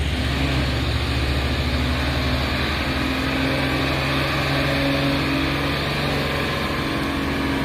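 A large truck's engine running steadily, a low even drone that holds its pitch.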